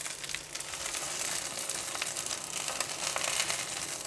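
Hot fish oil sizzling steadily with fine crackles under grilled saba mackerel fillets on baking paper in a pan.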